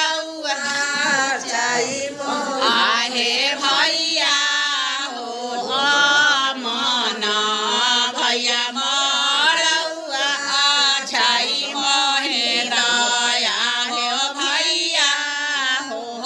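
Voices singing a chant-like song, bending and holding long notes without a break.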